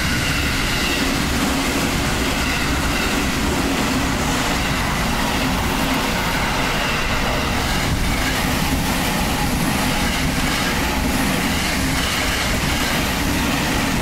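Electric commuter train passing at speed over a level crossing: a loud, steady rumble and rattle of wheels on the rails. The crossing's warning bells keep ringing faintly underneath.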